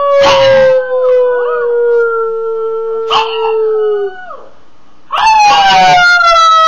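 A pug and a person howling together in long howls that slowly fall in pitch. The howling breaks off about four seconds in and starts again about a second later.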